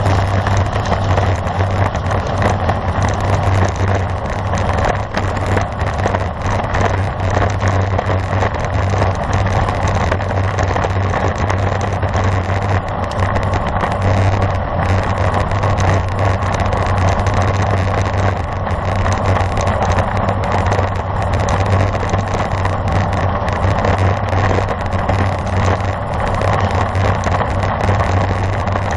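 Steady rushing wind and road rumble on a bicycle-mounted camera's microphone while riding a road bike at speed.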